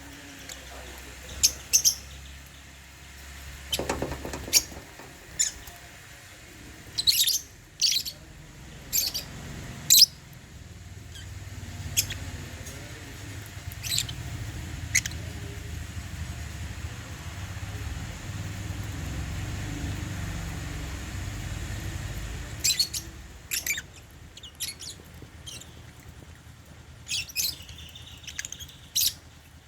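African lovebirds giving short, sharp chirps, some single and some in quick clusters, scattered throughout and busiest near the end. A low rumble rises and falls under the calls through the middle.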